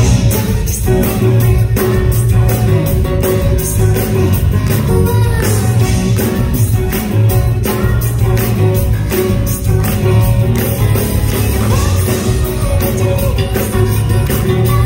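Live pop song: a woman singing at a grand piano, backed by a band with drums keeping a steady beat.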